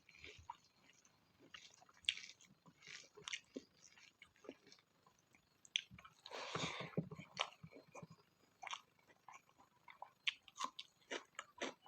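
Close-miked chewing of spicy pork fat: irregular wet clicks and smacks of the mouth working the food. A longer, louder bite or crunch comes a little over six seconds in.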